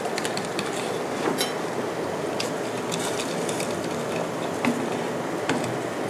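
Pork broth bubbling in a steel pot while a wire-mesh noodle basket is jiggled in it to blanch pork, with scattered light clicks of the wire basket against the pot.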